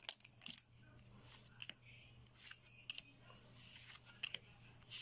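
Trading cards being flipped through one by one in the hand: a quiet run of short, sharp card snaps and slides, often in pairs.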